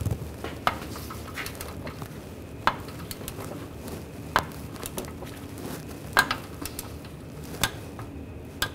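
Torque wrench working the nut on a new front lower ball joint: single sharp metallic clicks every second or two as the handle is worked in short strokes, tightening the nut to 44 foot-pounds.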